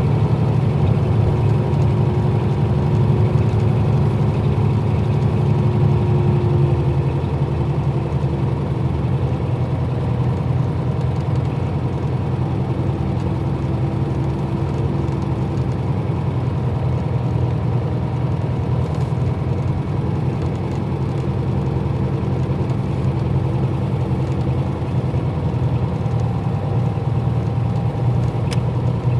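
Nissan Diesel KL-UA452MAN city bus's diesel engine running with a steady low hum, which shifts slightly in pitch about seven seconds in.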